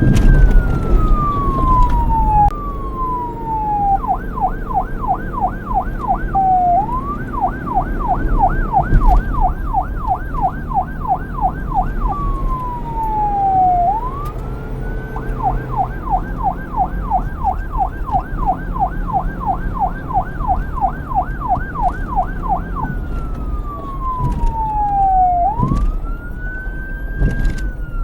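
Police car electronic siren switching back and forth between a slow wail, rising and falling over a few seconds, and a fast yelp of about three to four sweeps a second. A low rumble runs beneath it.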